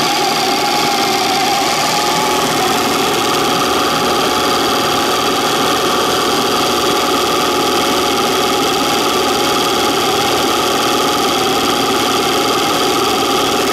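1976 Mercury 1150 inline-six two-stroke outboard motor running steadily, with an even buzzing note that holds at one speed.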